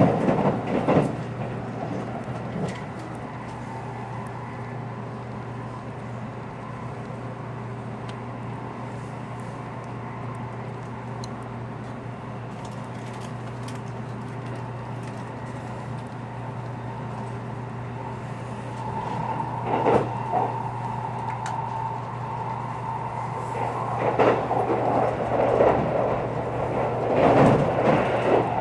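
Running noise inside a JR Kyushu Series 783 electric train at speed: a steady rumble and low hum. A higher steady tone joins about two-thirds of the way through, and there are louder rushes of noise around then and again near the end.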